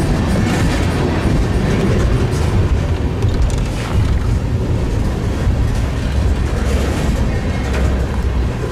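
CSX freight train rolling past: a steady low rumble of the cars, with occasional clicks of wheels over the rail.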